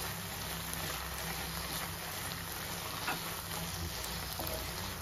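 Spatula stirring sugar into grated carrots in a nonstick pan: soft scraping, with a light tap about three seconds in, over a steady low background hum.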